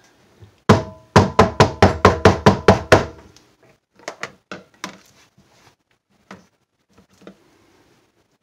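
A silicone loaf mold full of hot process soap being rapped down on a countertop to settle the soap: one knock, then a fast run of about ten knocks at roughly five a second, followed by a few fainter, scattered taps.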